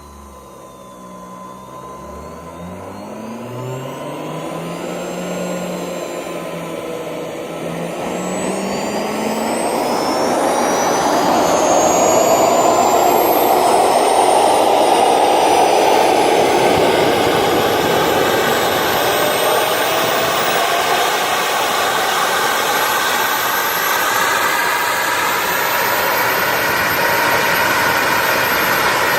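KingTech K70G model jet turbine starting up and spooling: a rising whine over the first several seconds, then it grows loud over about twelve seconds, with a high whistle that keeps climbing in pitch until it settles into a steady run near the end.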